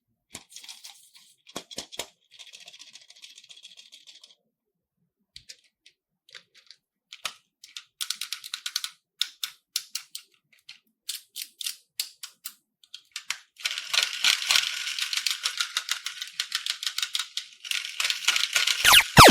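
Slime being worked by hand, giving small sticky clicks and pops that grow denser about halfway through and turn into steady crackling in the last few seconds.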